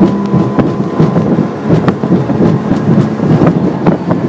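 Boat running fast through wind-blown chop: wind buffets the microphone and the hull knocks on the waves again and again, over the drone of an Evinrude 115 HO G2 three-cylinder outboard.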